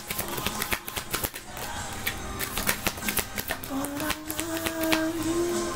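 A deck of tarot cards being shuffled by hand, a quick irregular patter of card clicks and slaps. About two-thirds of the way through, soft music with long held notes comes in under the shuffling.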